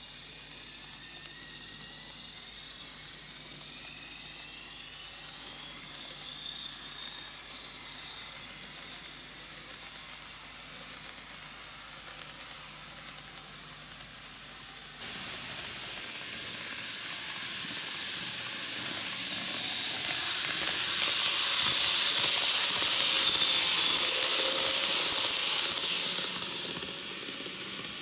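N-gauge model shinkansen (KATO E4 series 'Max Toki') running on its track. Through the first half a motor whine of several tones glides up in pitch. About halfway a louder hiss of wheels on the rails takes over, swells to its loudest and falls off shortly before the end.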